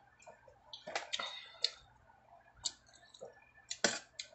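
Spoon and fork clicking and scraping against a stainless steel dish while eating: a scatter of light, irregular clicks, the sharpest one near the end.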